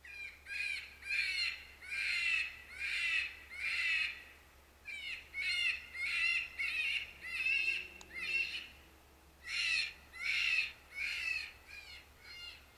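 Lucky Duck Revolt electronic predator caller playing a rabbit distress call: a string of short, wavering, high cries, about two a second, broken by a couple of brief pauses.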